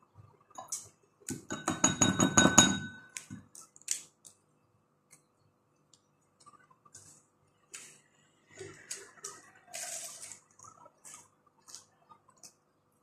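Eating by hand from a ceramic plate: a quick run of ringing clinks and scrapes against the dish about two seconds in, followed by scattered soft chewing and lip-smacking clicks as fried chicken and rice are eaten.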